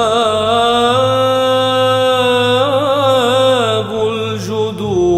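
Arabic Christian hymn sung in a slow, ornamented style: the singer slides up into a long held note, then winds through a wavering melismatic run about three seconds in, over a low sustained instrumental accompaniment.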